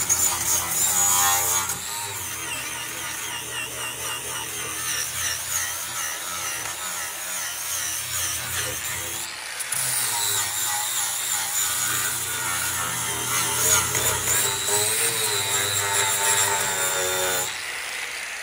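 Corded electric angle grinder with a coarse sanding disc running and grinding against a truck's aluminum grille panel, its whine wavering as it is pressed and moved over the metal, then easing off near the end. This is the rough first pass that takes out dents and cuts before the aluminum is sanded finer and polished.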